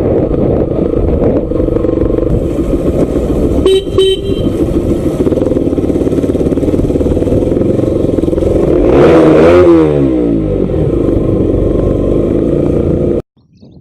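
Bajaj Pulsar NS200's single-cylinder engine running under way, heard with heavy wind rumble on the microphone. A short horn beep sounds about four seconds in, and a louder note swings up and down in pitch around nine seconds in. The sound cuts off abruptly near the end.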